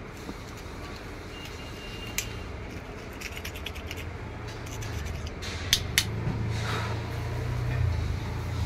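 Light metallic clicks and scraping as a hand tool works at the lead wires of a burnt-out car AC compressor clutch coil, with two sharp clicks near the middle. A steady low hum runs underneath and swells a little past the middle.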